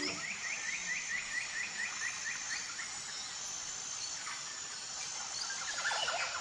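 Jungle ambience: a fast series of short chirping calls, about five a second, fading out over the first two and a half seconds, over a steady high insect drone. Near the end, a falling sweep leads into another fast run of calls.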